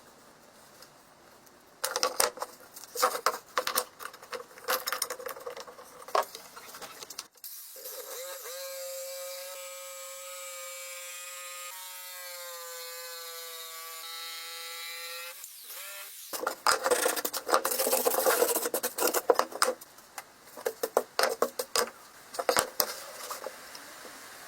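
Woodworking tool noises: irregular scraping and knocking on wood. In the middle a pitched, whirring tool runs steadily for about eight seconds, then the scraping and knocking resume.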